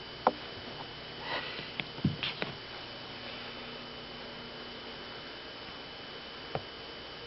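A cat playing with a feather toy: a few scattered taps and soft thumps, a cluster of them about two seconds in, with a short rustle just before, over a faint steady hum.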